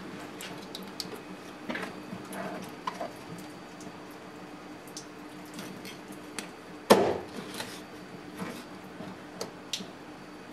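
Kitchen knife cutting the head off a smooth flutemouth on a wooden cutting board: wet squelching and small taps as the slippery fish is handled. About seven seconds in comes one sharp knock as the blade goes through and hits the board.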